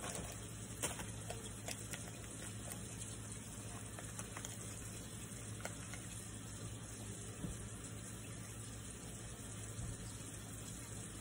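A few faint ticks and rustles from a paper yeast packet being handled and tipped into a glass, over a steady low hiss.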